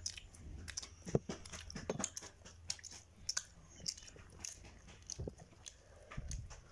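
Children chewing and tearing pieces of a pan-fried saag paratha: irregular small crunches and clicks of eating and bread being pulled apart.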